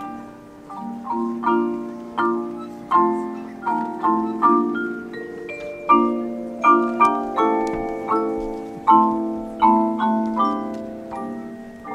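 A marching band's front-ensemble mallet percussion, marimbas with other keyboard percussion, playing a passage of struck notes and chords, each ringing briefly and fading before the next stroke.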